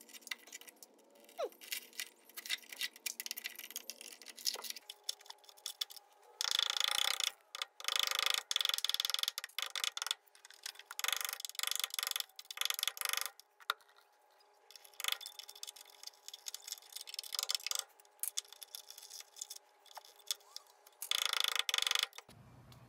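Hand scraping and scratching at rusty sheet metal and debris, irregular clicks and scrapes broken by several scrubbing bursts about a second long.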